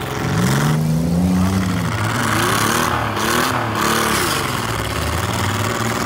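Demolition derby cars' engines revving, the pitch rising and falling again and again as several cars rev at once.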